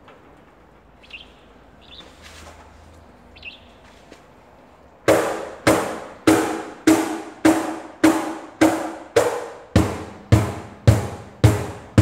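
Echoslap Oldbox cajón of Siam oak played by hand, starting about five seconds in: an even beat of single strikes at about two a second, each ringing briefly, with deeper bass strokes coming through more strongly near the end.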